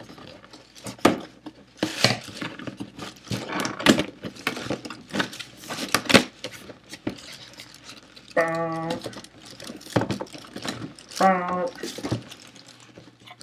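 A cardboard box being cut and pried open by hand: repeated scraping, tapping and tearing of cardboard and tape. Twice in the second half, a man gives a short hum.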